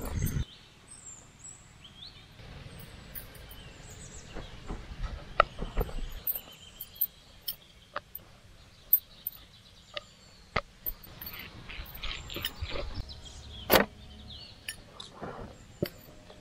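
Wooden rolling pin working wheat dough on a wooden board: soft rubbing and rolling with scattered light knocks and taps as the pin and dough are handled. The sharpest knock comes about three-quarters of the way through.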